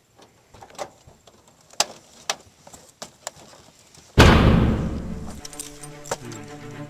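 Faint scattered clicks and knocks of someone getting out of a parked car, then a sudden loud boom about four seconds in that fades away over a second. Sustained music notes start near the end.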